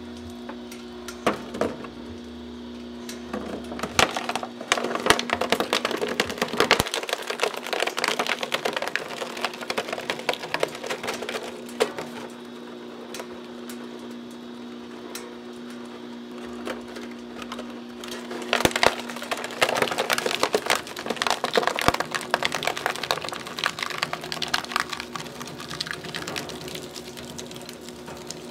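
A homemade plastic shredder running with a steady hum from its drive while its rotating cutter discs grab and tear a white plastic jug, giving dense cracking and crunching of plastic. The crunching comes in two long bouts, one starting about four seconds in and another about two-thirds of the way through, with only the hum between.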